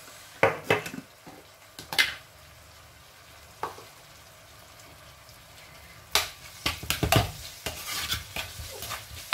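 Metal spoon stirring and scraping chopped onion and pepper in a nonstick pot, a quick run of scrapes and knocks from about six seconds in. Before that come a few single knocks against the pot, over a faint sizzle of the vegetables frying in oil.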